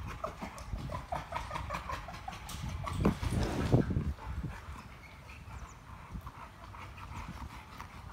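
Two American bully dogs play-wrestling, their breathing and scuffling heard close by. There is a louder burst of activity about three seconds in, and the sound then settles quieter as they pause.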